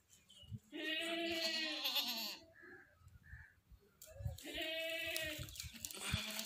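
Goat bleating twice, two long wavering calls each about a second and a half long with a short pause between.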